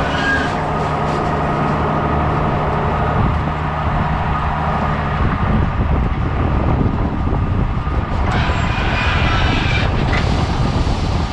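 Tractor engine running steadily while pulling a V hay rake through alfalfa windrows, a continuous low drone, with a brighter rattling stretch about eight seconds in.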